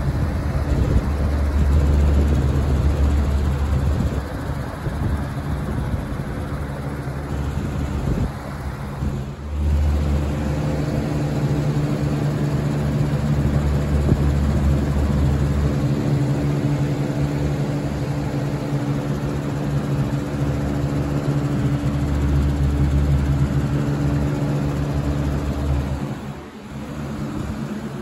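Lasko 3733 box fan running after ten years of near-daily use: a steady motor hum with the rush of its airflow, which buffets the microphone in a deep rumble that comes and goes.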